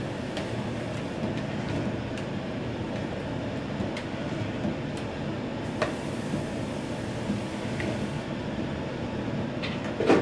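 Steady low rush of a gas wok burner under a wok of onions sizzling in dark sauce as they are stir-fried, with a metal ladle clicking against the wok a few times, the hardest knock near the end.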